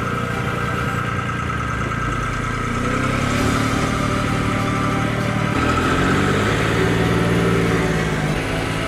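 Engine of a loader working a hydraulic log grapple, running steadily and then speeding up about three seconds in, holding higher revs, and dropping back near the end.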